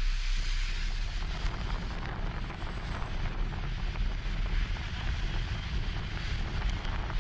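Wind buffeting the microphone over a low, steady rumble of vehicle engines.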